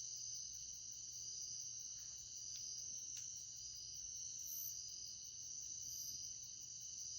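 Steady high-pitched insect chorus, with one voice in it pulsing about once a second. Two faint ticks come near the middle.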